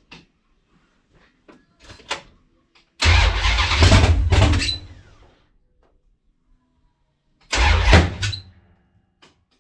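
1970 Dodge Dart's 408 cubic-inch stroker V8 on open headers with no mufflers, being started: two short, loud bursts with a deep low rumble, about four seconds apart, each lasting a second or two and then dying away without the engine staying running.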